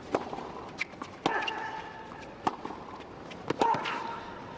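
Tennis rally on a hard court: racket strikes on the ball at a steady pace of about one every second and a quarter, with short high squeaks after some of the hits.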